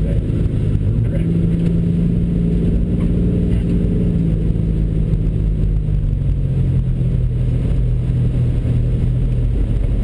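Car engine heard from inside the cabin, running steadily while the car rolls along at low speed, its note dropping in pitch about halfway through as the car eases off.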